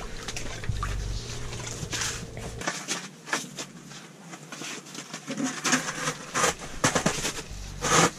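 Close handling noise: jacket fabric rustling and scattered small clicks as hands work an ice-fishing rod and reel. The clicks come thicker in the second half, with one louder knock near the end.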